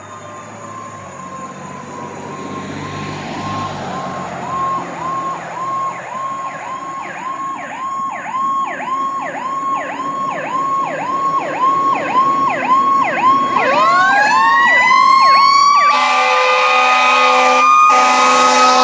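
Fire engine sirens getting louder: an electronic siren yelping about twice a second, then a siren rising into a long wail about two-thirds of the way through. Near the end, steady air horn blasts come in, broken briefly twice.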